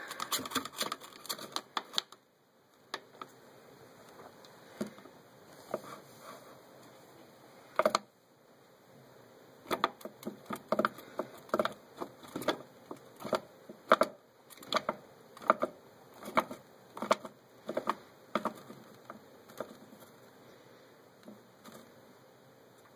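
Sharp taps and light scratches on cardboard, in a cluster at the start, one loud tap about eight seconds in, then a run of about one to two taps a second, as a mouse kicks against a cardboard box floor while a baby ball python constricts it.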